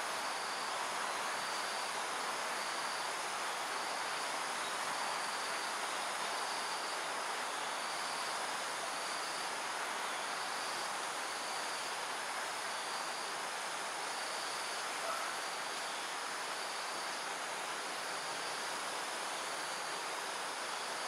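Evening insect chorus: a steady high-pitched buzz, with a shorter insect call repeating about once a second, over a steady rushing background noise.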